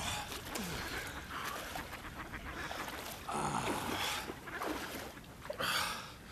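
Water splashing as a man wades out of a pond through the shallows, with ducks quacking. The loudest bursts come about three and a half seconds in and again near the end.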